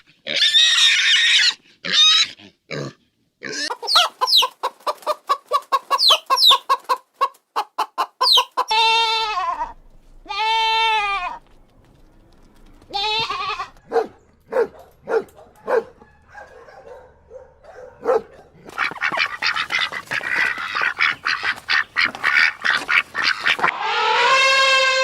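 A series of animal calls, one kind after another: a fast run of short calls, then two arching calls about a second and a half apart, more scattered short calls, and a long held call beginning near the end.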